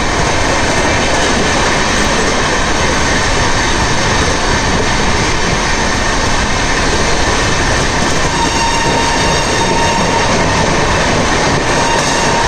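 Indian Railways train running fast on the track, a loud, steady rush of wheels on rails. A faint high squeal joins it about eight seconds in.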